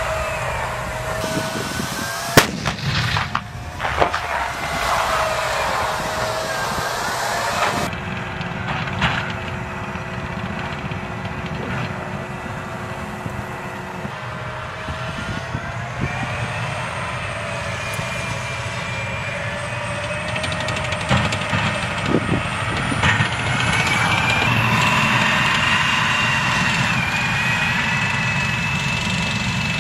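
M1A2 Abrams tanks' gas-turbine engines whining over a low rumble, the whine rising and falling in pitch as the tanks move. Two sharp loud bangs come about two and four seconds in.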